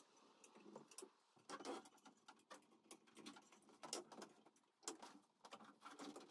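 Faint, irregular clicks and light knocks from a hand chain hoist being worked, its chain rattling as the slung engine is shifted.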